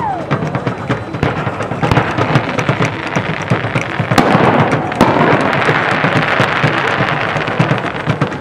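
Fireworks: aerial shells bursting overhead with dense crackling. There are sharper bangs about two seconds in and again around four to five seconds in, and the crackle thickens past the middle.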